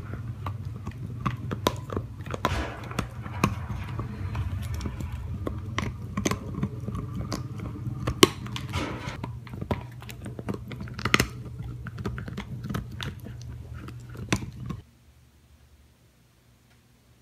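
A dog chewing on a plastic bottle: rapid, irregular crinkling and crackling clicks. The sound cuts off suddenly near the end.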